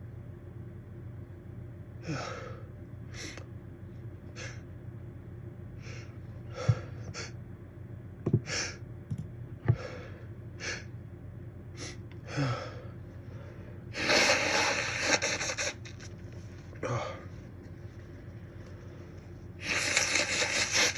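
A person's sneeze building slowly: about a dozen short, hitching gasps spaced a second or so apart, then two longer, louder sneezing bursts about two-thirds of the way in and near the end.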